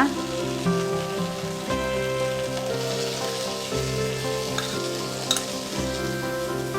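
Spice pastes sizzling and being stirred in hot mustard oil in a karahi, with a couple of light utensil clicks, over background music with held chords that change about once a second.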